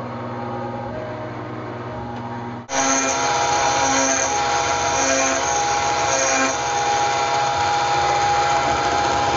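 TAIG CNC mill cutting aluminum with a quarter-inch two-flute high-speed steel end mill: the spindle whines steadily over the cutting noise. About three seconds in the sound jumps suddenly louder and brighter, with a short lower note that comes back about once a second.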